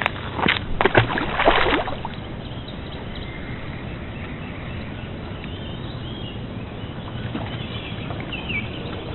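Outdoor lakeside background: a few sharp rustles and knocks in the first two seconds, then a steady, even hiss with a few faint high chirps near the end.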